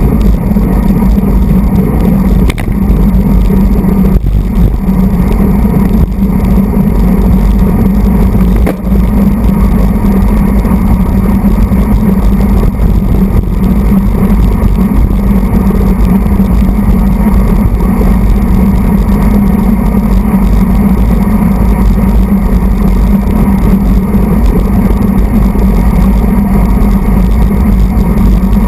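Loud, steady wind and road noise on the microphone of a camera mounted on a road bike's handlebars at racing speed.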